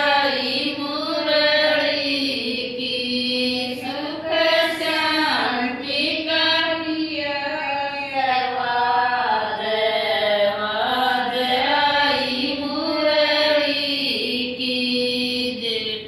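Women's voices singing a Shyam bhajan, a Hindu devotional song, in a slow chant-like melody with long held, wavering notes.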